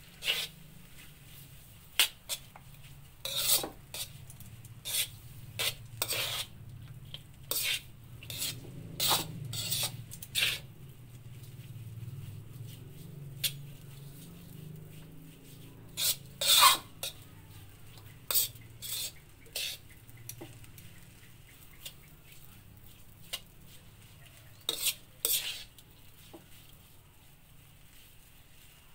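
Metal tongs scraping and clacking against a metal wok as fried rice vermicelli is stirred and tossed: irregular clusters of sharp clicks and scrapes over a low steady hum.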